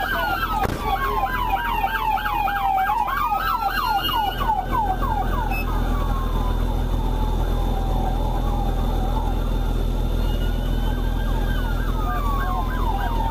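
Police car sirens: a slow wail rising and falling, overlapped by a fast yelp of about four to five sweeps a second from about a second in to about five seconds in, and again near the end. A steady low rumble runs underneath.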